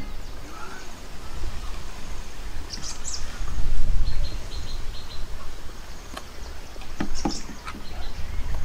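Outdoor rural ambience: small birds chirping now and then over a low rumble, with a few light knocks near the end.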